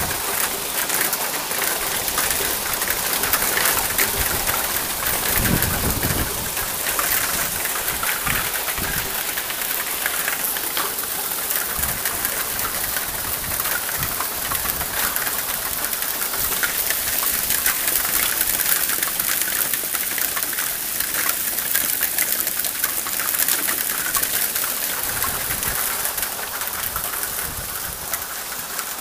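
Hail falling: a steady, dense patter of small hailstones striking the lawn, pavement and front steps.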